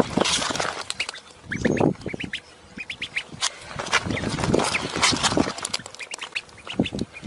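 Birds calling in a quick series of short, harsh calls, with a run of thin high peeps about two seconds in.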